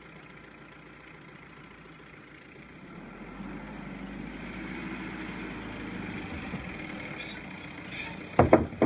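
SUV engine running as the vehicle drives off a ferry along wooden planks onto sand, the engine noise building from about three seconds in. A quick run of loud knocks comes near the end.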